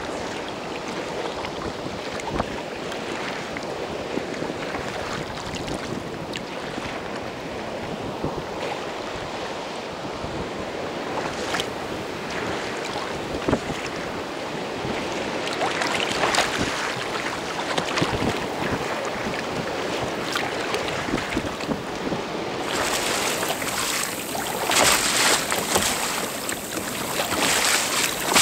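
Choppy sea water splashing and sloshing against a kayak hull, with wind buffeting the microphone. Toward the end the splashing turns brighter and louder.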